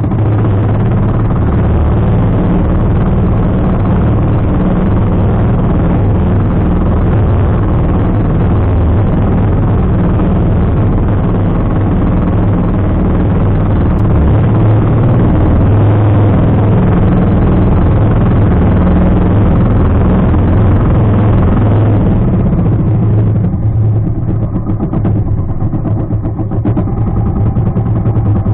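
Motorized outrigger boat's engine running steadily under way, a constant low drone. Near the end the higher noise thins and the engine hum stands out more.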